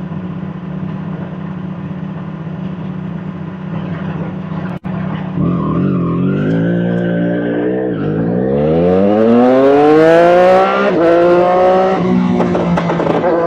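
Triumph motorcycle engine idling steadily. After a momentary break about five seconds in, it accelerates hard, its note climbing in pitch and dropping back with each gear change.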